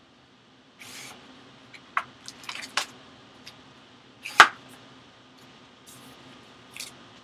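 Plastic shrink-wrap being torn and crinkled off a cardboard trading-card box by gloved hands: a few short rustles and crackles, with one sharp snap about four and a half seconds in.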